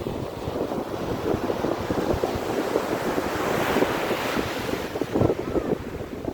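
Sea waves breaking on the shore, one wave swelling to a rush about four seconds in and then easing, with strong wind buffeting the microphone.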